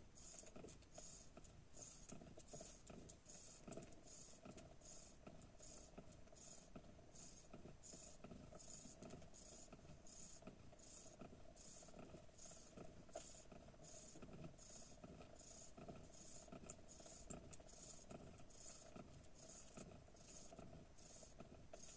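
Faint, soft hissy sounds in an even rhythm, about three every two seconds, from a mother cat nursing her 11-day-old kittens, over a faint steady hum.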